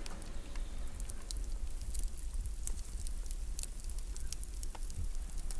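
Wood campfire crackling: scattered sharp pops and snaps over a low steady rumble.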